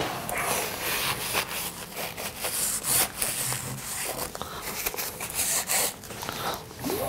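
Paper towel rubbed back and forth along the smooth rods of a Prusa i3 MK2 3D printer in repeated scrubbing strokes, wiping off dust before the rods are lubricated.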